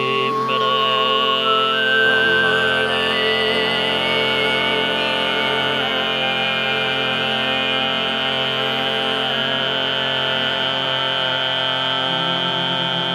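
Overtone singing: a sustained low vocal drone with a whistle-like overtone melody above it, the high tone stepping upward in the first few seconds and then held.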